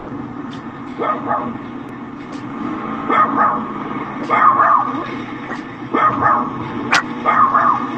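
Dog barking in quick double yaps, the pairs repeating about every one and a half seconds, over a steady car-cabin hum.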